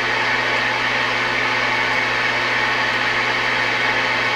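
Tram Titan II CB base station's receiver playing steady band static, an even hiss with a low steady hum under it, with the channel open and nobody transmitting.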